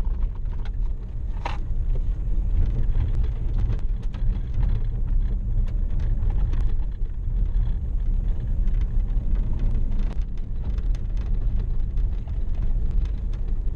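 Dodge Charger AWD driving over packed snow, heard from inside the cabin: a steady low rumble of engine and tyres, broken by many small clicks and knocks.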